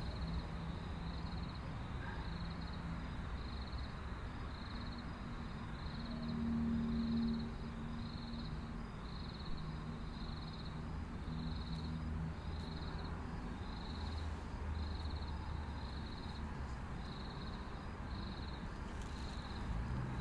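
Night outdoor ambience: crickets chirping at a steady rate of about two chirps a second over a low rumbling hum, which swells briefly about six seconds in.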